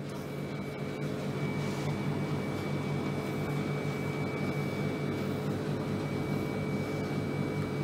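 Steady background hum of a running machine, unchanging throughout, with a constant faint high whine above it.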